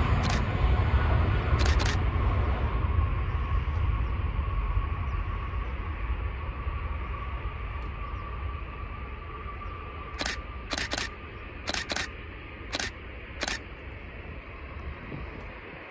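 Aircraft engine noise fading steadily away, with a steady whine in it. Over it, a Canon EOS 700D DSLR's shutter fires twice near the start, then about seven more times in quick succession about ten to fourteen seconds in.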